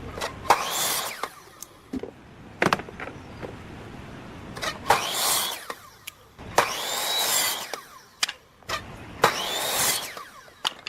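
A tool worked on wood in four separate strokes about a second long each, with a few sharp knocks in the pauses between them.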